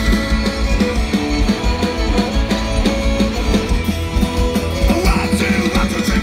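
Live rock band playing loud, driving music on an amplified stage: drums with a steady beat, electric, acoustic and bass guitars, accordion and fiddle.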